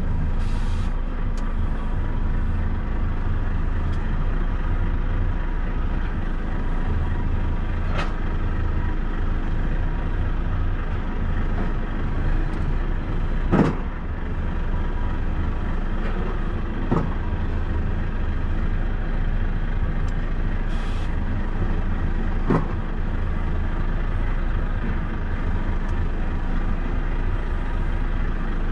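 Semi-truck diesel engine running steadily at low speed as the truck creeps along the train wagons, with about four sharp knocks, the loudest about halfway through.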